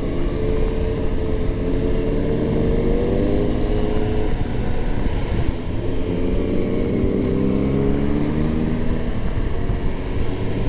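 Kawasaki Ninja 1000's inline-four engine running under way, its pitch climbing, dropping about four to five seconds in, then climbing again, over a steady rush of wind noise.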